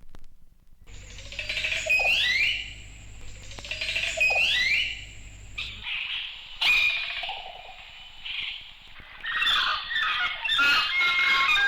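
Jungle bird calls from a 1960s sound-effects record: two rising calls about two seconds apart, then a busy overlapping chorus of different birds calling from about nine seconds in.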